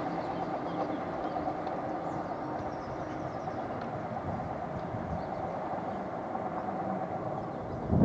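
Diesel multiple unit's engines droning steadily as it runs away down the line, slowly fading, with a brief low thump right at the end.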